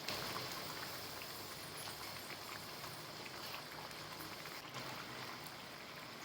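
Moong dal vadas deep-frying in hot oil: a steady low sizzle with faint scattered crackles.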